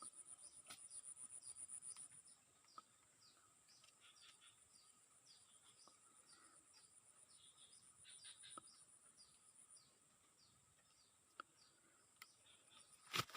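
Faint outdoor ambience of insects and birds: a high, rapidly pulsing insect trill that stops about two seconds in and returns for a few seconds in the middle, over a string of short falling chirps repeated about twice a second.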